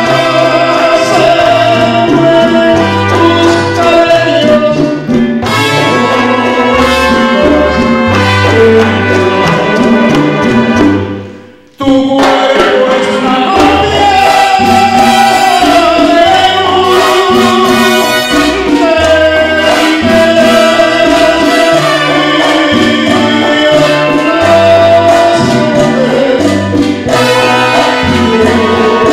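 Latin dance band with a trumpet section playing. The music fades out about eleven seconds in, then cuts back in suddenly at full level with the brass.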